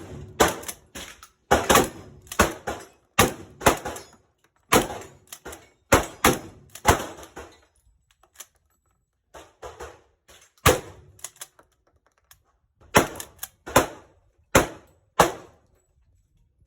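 A string of about two dozen gunshots, irregularly spaced and often in quick pairs, each with a short echo off the walls of an indoor range, with a lull of a couple of seconds about halfway through.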